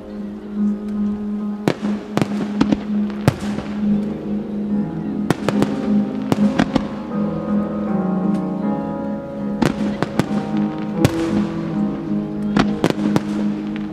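Display fireworks going off: clusters of sharp bangs, some followed by a fading crackle. Under them a song plays steadily over loudspeakers.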